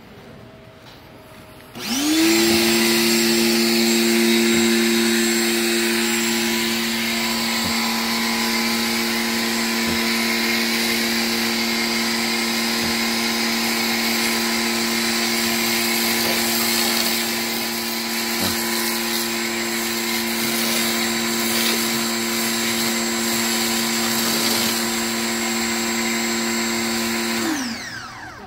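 Electric pressure washer starting up about two seconds in with a quick rise in pitch, then running steadily, a hum from the motor and pump under the hiss of spray through a foam cannon. It winds down with a falling pitch and stops just before the end, as the trigger is released.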